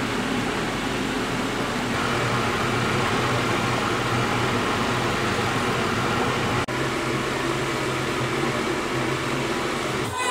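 Steady machine hum over an even rushing noise, cutting out for an instant about two-thirds of the way through.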